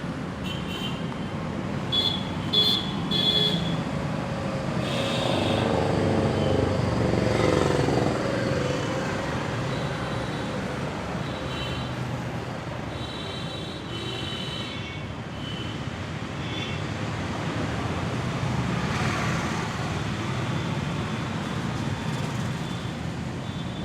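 Steady road-traffic noise, with short vehicle-horn toots several times and a louder swell of passing traffic a few seconds in.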